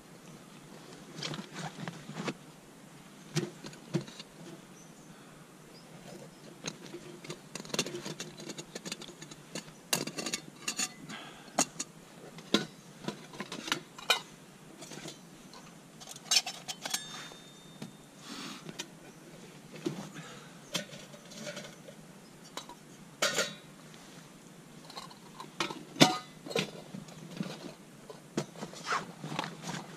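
Metal camp cookware clinking and knocking as it is unpacked and handled, in irregular clinks and clicks, with a short metallic ring about halfway through.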